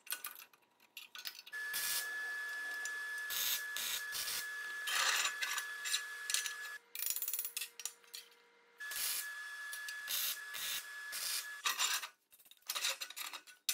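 Welding arc tacking steel square tubing: two stretches of steady hissing with a thin whine, about five seconds and then about three seconds. Short clanks and scrapes of the steel tubes being handled come near the end.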